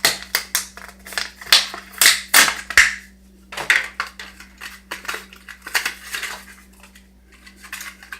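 Plastic-and-cardboard Hot Wheels packaging being crushed and pulled open by hand: irregular crackles and rips, densest in the first three seconds, then sparser.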